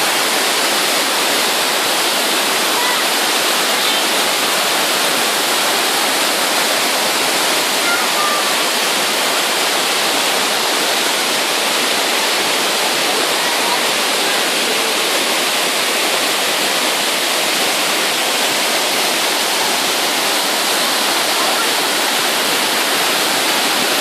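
A waterfall with water pouring down steadily: an even, unbroken rush that never lets up.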